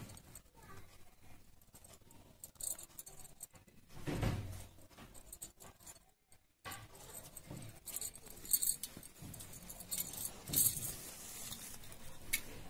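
Cotton cloth rustling and crackling as it is handled and sewn by hand with a needle and thread, with a soft thump about four seconds in.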